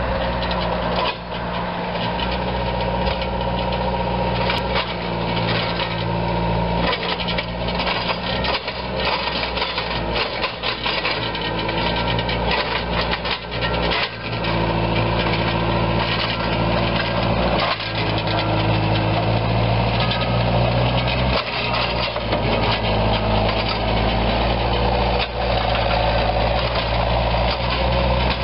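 JCB 35D telescopic forklift's diesel engine running steadily as the machine drives along, its note rising and falling a little.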